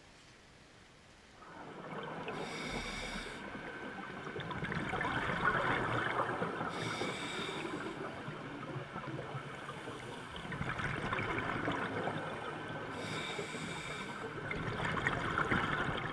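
Scuba diver breathing through a regulator underwater, starting just over a second in: three short hissing inhalations, a few seconds apart, with long, crackling runs of exhaled bubbles between them.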